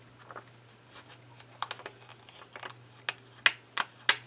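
A run of short, sharp clicks and taps from handling paper sticker sheets and planner pages, sparse at first and then louder and closer together over the last couple of seconds, over a faint steady low hum.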